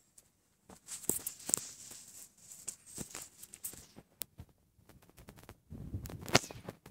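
Phone handling noise: the phone's microphone rubbing and knocking against a padded jacket, giving irregular rustles and sharp clicks.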